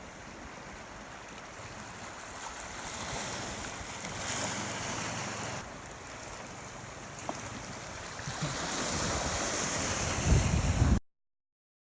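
Sea waves washing and breaking, with wind buffeting the microphone; the surf swells louder in waves, and a strong gust rumbles on the microphone just before the sound cuts off abruptly.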